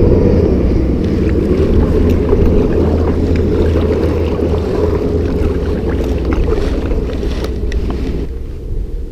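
Kayak being paddled with a double-bladed paddle, with a steady wind rumble on the microphone and faint splashes and drips from the blades. The rumble drops off suddenly near the end, as the paddling stops.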